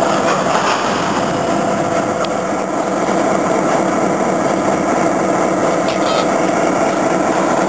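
Diesel locomotive engine idling, a steady hum with several even tones.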